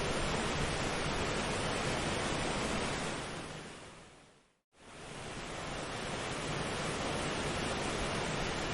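Steady, even rushing noise of an ambient relaxation track. It fades out about three seconds in, goes silent for a moment, then fades quickly back in, as at a loop point or track change.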